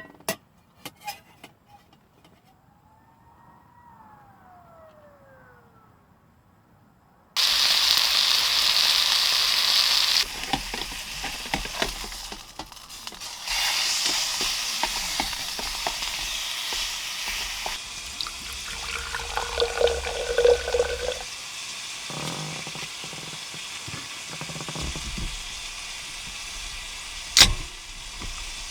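Food sizzling in a hot pan, starting suddenly about seven seconds in after a quiet stretch with a few clicks, then frying on with small clatters.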